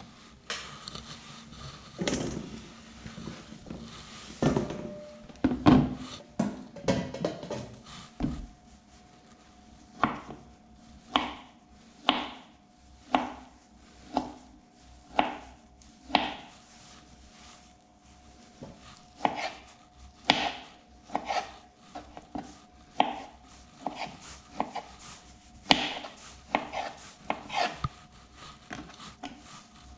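Kitchen knife slicing through a pink bologna-style sausage and knocking on a plastic cutting board, about one cut a second and then a little faster near the end. The first few seconds hold irregular knocks and handling on the board.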